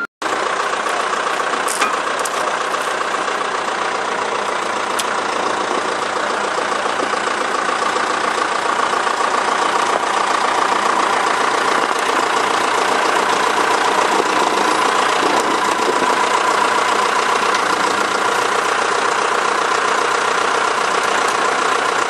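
Engine of heavy earthmoving equipment running steadily, close by.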